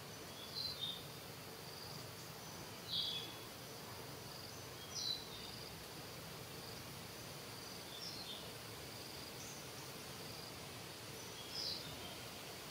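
Steady high insect drone in the background, with a short, high, downward-sliding chirp about every two to three seconds, five in all.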